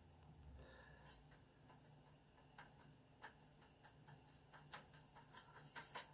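Faint clicks and light scrubbing of a watercolour brush working paint in a plastic palette well, coming more often in the second half.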